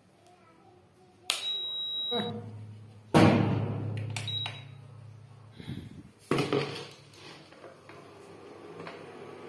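Induction cooktop powering up: a high beep about a second in, then a low electrical hum. A louder rush of noise comes at about three seconds, and a second short beep as a button is pressed at about four and a half seconds.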